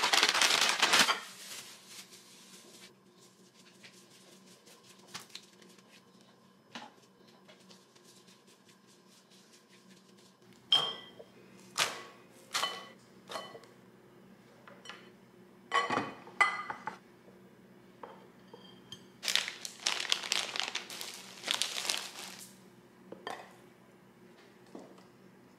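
Paper wrapping crinkling as a pack of ground beef is opened, then a run of light clinks and knocks of dishes and a glass bowl being handled. Near the end there is another spell of crinkling packaging.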